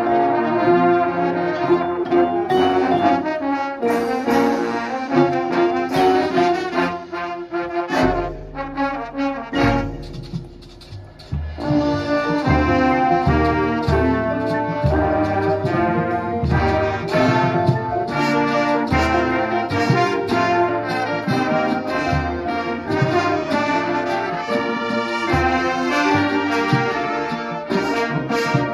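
High school marching band playing a brass-led passage with percussion. About eight seconds in a sharp hit gives way to a low held note and a brief quieter stretch, then the full band comes back in with a strong, rhythmic beat.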